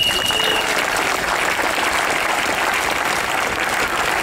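Crowd applauding, an even continuous clatter of many hands clapping. A brief high steady tone sounds over it in the first second.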